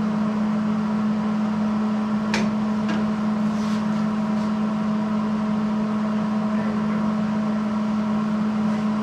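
Steady electrical hum of a welding machine standing by, with a few light metallic clicks and taps about two to four seconds in.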